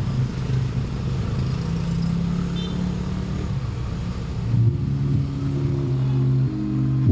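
The bass line of music played through a low-pass filter preamp and amplifier into a subwoofer. Deep, sustained bass notes carry almost no treble, shifting to new notes about four and a half seconds in.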